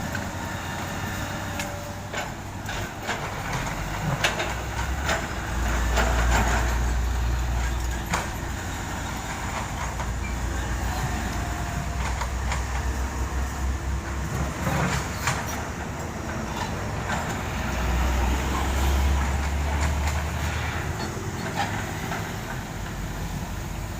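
Heavy diesel construction machinery at work: a deep engine rumble that swells twice, with scattered clanks and knocks of a steel bucket or bed against asphalt and rubble.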